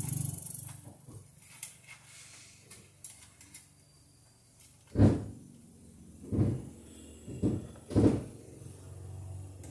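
Light clicks and rustling of wiring being worked into a breaker panel, then four dull thumps in the second half.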